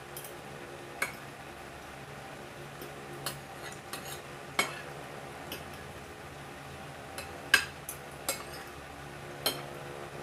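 Metal spoon and fork clinking and scraping against a plate while eating, with irregular sharp clinks every second or two, the loudest about three quarters of the way through. A steady low hum runs underneath.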